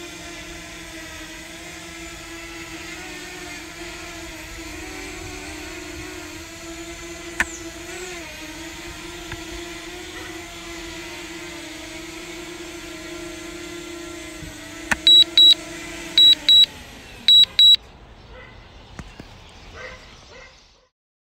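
DJI Mavic Mini quadcopter hovering low with a steady propeller whine. About three quarters of the way in come three pairs of short, high electronic beeps as it lands. The motors then wind down and stop.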